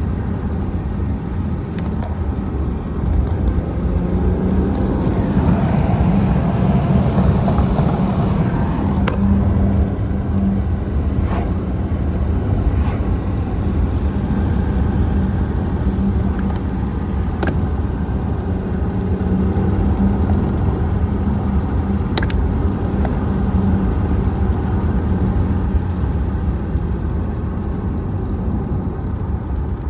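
Car engine and road noise heard from inside a moving BMW's cabin: a steady low rumble with an engine hum, louder between about four and ten seconds in. A few faint sharp clicks sound over it.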